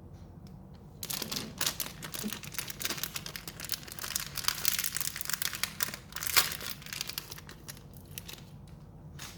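Parcel packaging crinkling and tearing as it is opened by hand. The rustling starts about a second in and dies down near the end.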